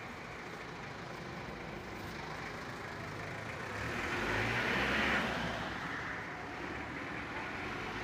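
Road traffic noise, a steady wash that swells louder about halfway through, with a low engine hum underneath from then on.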